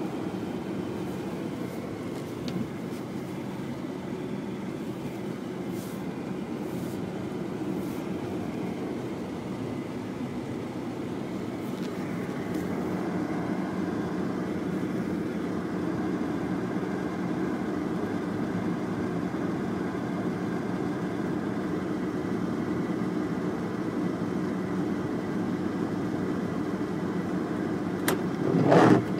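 Steady engine and road noise of a car driving, heard from inside its cabin, with a brief louder rush about a second before the end.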